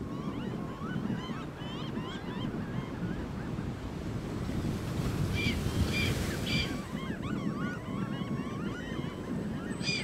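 Gulls calling over steady wind and surf noise: a chorus of thin, wavering calls throughout, with three short, louder calls in quick succession about five and a half seconds in.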